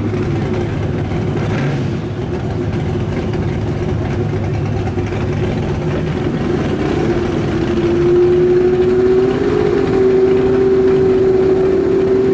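Ski-Doo snowmobile engine running steadily while staging for a drag launch. Its pitch lifts a little and it gets louder about eight seconds in, then it holds there.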